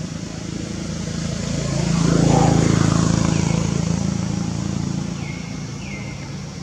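A motor vehicle passing by: its low engine hum swells to its loudest about two seconds in and then fades away over the next few seconds. A few short falling chirps follow near the end.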